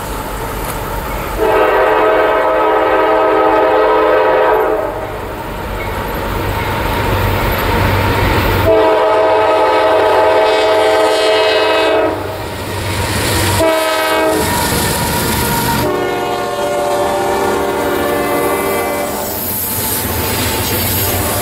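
Horn of an approaching CSX freight locomotive, a GE C40-8W, sounding the standard grade-crossing signal: two long blasts, one short, then a long one, over the low rumble of the diesel engines. Near the end the double-stack intermodal cars are rolling past, wheels clacking over the rails.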